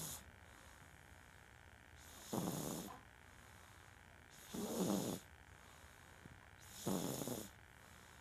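Loud snoring in a slow, steady rhythm: three long rasping snores, one about every two and a quarter seconds.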